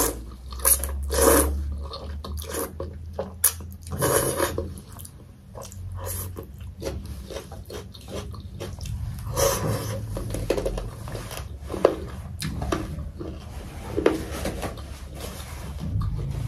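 Close-up eating sounds of a person slurping and chewing thukpa noodle soup: irregular wet slurps and chews, loudest in the first couple of seconds.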